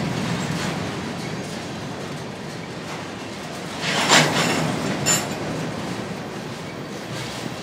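Freight train of three-bay covered hopper cars rolling past close by: a steady rumble of steel wheels on rail that slowly fades, with a loud burst of clatter about four seconds in and a shorter, sharper one about a second later.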